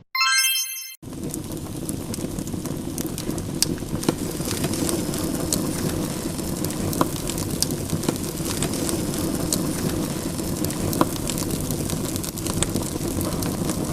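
A short ringing chime, then a steady hiss dotted with sharp crackles and pops, like rain falling or a fire crackling.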